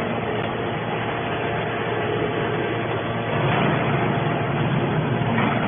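Hydraulic scrap-metal baler running: a steady machine hum with a few faint steady tones through dense mechanical noise.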